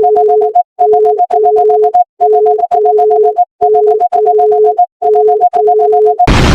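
Synthesized EAS-style emergency alert alarm: a higher tone beeping rapidly over a lower steady tone, both stopping and starting in blocks of about half a second in a repeating pattern. Near the end it is cut off by a sudden burst of loud noise.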